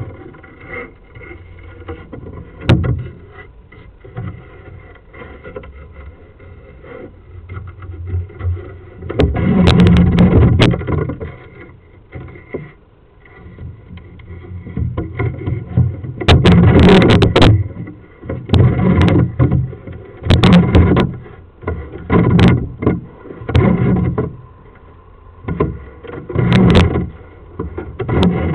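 Irregular bursts of rumbling and scraping as a drain inspection camera on its push rod is shoved in spurts up a stormwater pipe, over a faint steady electronic whine.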